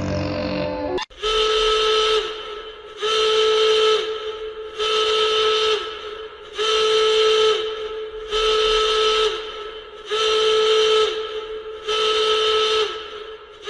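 Emergency alert alarm: a loud, breathy whistle-like horn tone with a hiss over it, sounded in seven one-second blasts about two seconds apart, each sagging slightly in pitch as it ends.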